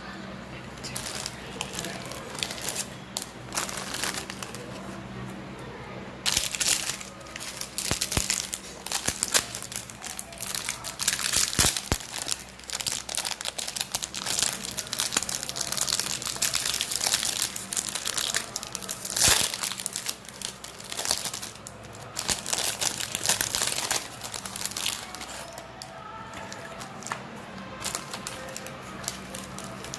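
Plastic wrapper of a wafer pack crinkling and rustling as it is handled, in irregular crackles that are sparse at first and come thick and fast from a few seconds in until near the end.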